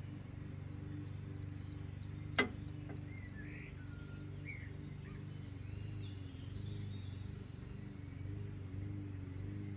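Birds chirping and calling in short, scattered notes over a steady low hum, with one sharp click about two and a half seconds in.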